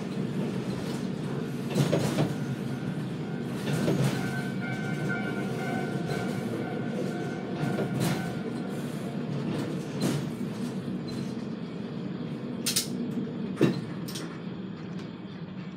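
KiHa 200 diesel railcar running along the line, heard from inside the cab: a steady engine drone with wheel clicks over rail joints about every two seconds.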